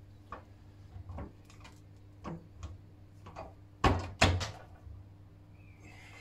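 Metal clicks and knocks as the fastenings of a steam boiler's round smoke box door are worked by hand, with two loud clanks about four seconds in.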